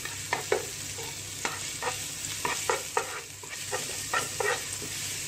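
Chopped ginger and garlic sizzling in hot olive oil, stirred with a spatula that scrapes and taps against the pan every so often.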